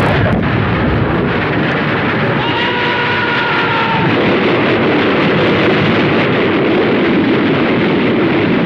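Continuous battle sound effects: a dense, steady rumble of artillery and explosions. About two and a half seconds in, a thin whistling tone rides over it for about a second and a half.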